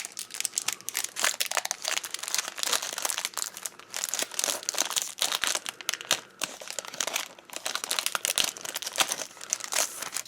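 Crinkly wrapper of a Pokémon trading card pack being handled and torn open: a continuous irregular crackling and rustling.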